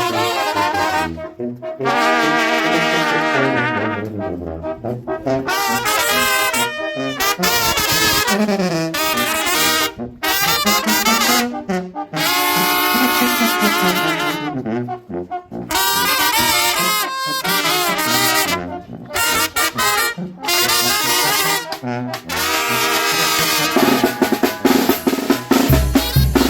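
Mexican brass band playing a ranchera: trumpet and trombones carry the melody in phrases with short breaks between them. Near the end the drums and low brass come in with a steady beat.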